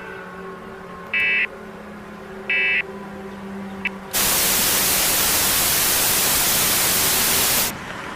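Two short Emergency Alert System data bursts, each a fraction of a second, about a second and a half apart, then loud white-noise static for about three and a half seconds that cuts off suddenly, over a steady low drone.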